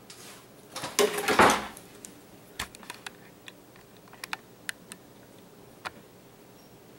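Close handling noise as a bare laptop motherboard is picked up and carried: a brief loud rustle about a second in, then a scattered string of light clicks and taps.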